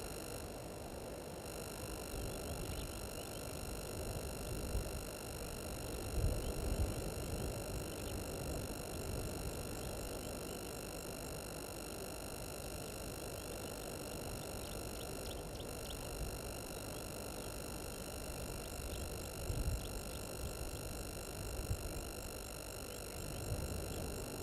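A steady electronic whine of several constant high tones, like a dial tone, over a low rumbling noise that swells a few times.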